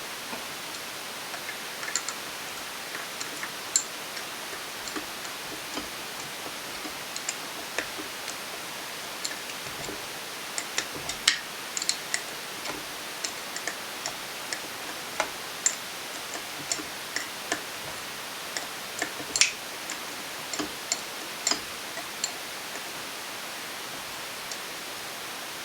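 Irregular light clicks and clinks of hand tools on metal as a carburetor's stud nuts are worked loose on an engine, over a steady background hiss.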